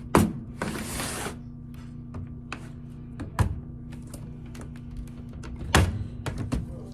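Plastic laptop bottom case being pried open with a pen around its edges: a few sharp clicks and knocks as the case snaps loose, a short scraping rustle about a second in, and small ticks in between, over a steady low hum.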